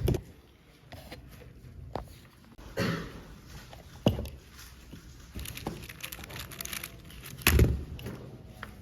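A few separate knocks and thumps indoors, the loudest near the end, over faint room noise.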